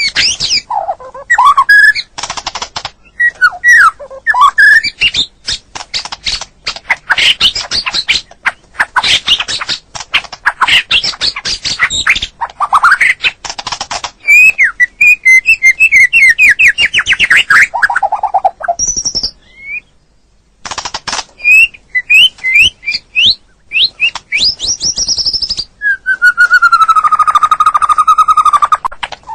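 White-rumped shama singing a long, varied song packed with mimicked phrases ("full isian"). It runs through fast clicking rattles, quick trills and whistled notes, then ends on a long held, buzzy whistle.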